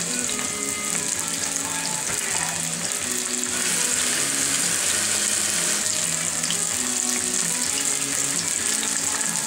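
Battered onion rings deep-frying in a pot of hot oil: a steady sizzle that grows a little louder about three and a half seconds in. Music plays in the background.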